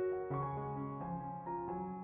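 Soft background piano music: gentle notes and chords changing every fraction of a second.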